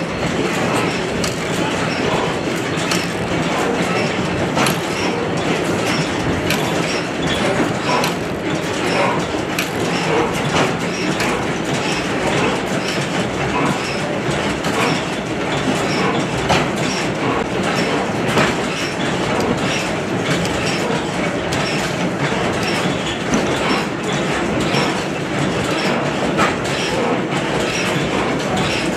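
Many antique stationary gas engines, hit-and-miss style among them, running together in an engine hall: a steady, dense mechanical clatter of overlapping clicks and knocks.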